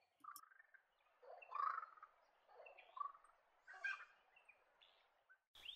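Laughing kookaburra calling: a run of rough, uneven notes that swell and fade. A short click comes near the end.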